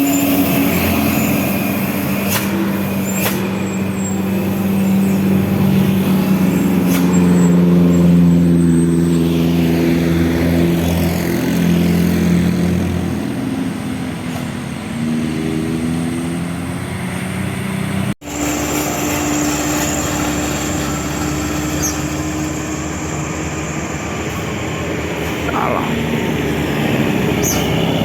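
Large diesel vehicle engine running, a steady pitched drone whose pitch rises slowly and then falls. It breaks off briefly about 18 seconds in, then continues at a steadier pitch.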